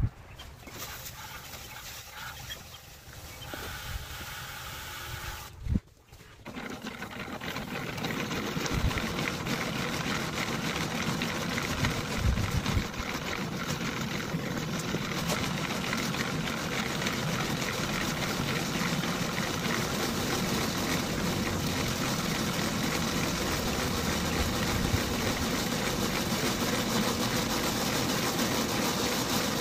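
Small electric cement mixer (Harbor Freight's 1¼ cubic foot model) running steadily, its drum turning a batch of concrete, from about eight seconds in after a quieter start.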